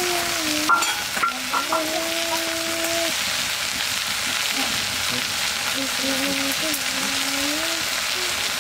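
Fresh leafy greens frying in a black iron pan over a wood fire: a steady sizzling hiss from the wet leaves hitting the hot metal. A few light clinks about a second in, and a wavering pitched tone sounds underneath for much of the time.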